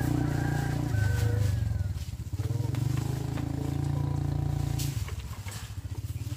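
A small engine running steadily, its note shifting about a second in and dropping near five seconds in to a slower, pulsing run.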